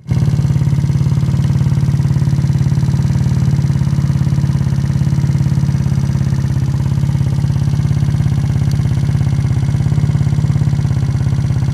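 Scooter engine of a Dongfang DF50SST, an 88cc big-bore kit breathing through a GY6 150cc carburetor, idling steadily with an even, rapid pulse.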